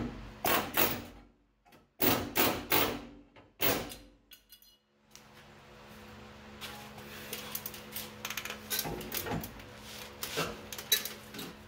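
Pneumatic air chisel hammering in short, sharp bursts against the sheet steel of a 1978 Ford F-150 cab corner, peeling out rusted metal. The bursts fall in the first few seconds; after a short pause come lighter, scattered metal clicks and knocks.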